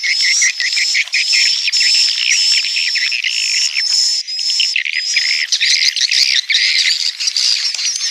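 Swiftlets twittering in a dense, unbroken chorus of rapid overlapping chirps with a repeated high piping note: a swiftlet 'inap' (roosting) lure call, played to draw swiftlets in to settle in a swiftlet house.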